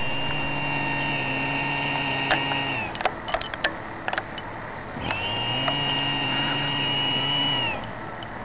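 A man snoring with an odd, steady pitched tone, almost like a motor: two long snores of about three seconds each, each dropping in pitch as it ends. A few faint clicks fall in the pause between them.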